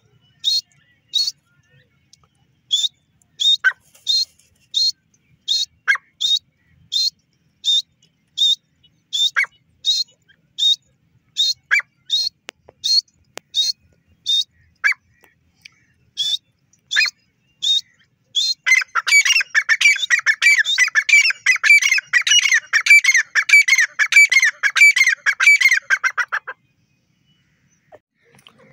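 Grey francolin calling: a long run of short, sharp, high notes, about one and a half a second, with an occasional lower falling note. About two-thirds of the way through it breaks into dense, rapid calling for some seven seconds, then stops.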